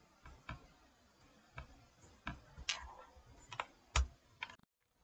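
Computer keyboard keystrokes clicking at irregular intervals, single taps and short runs, the loudest about four seconds in. The sound drops out completely for a moment just before the end.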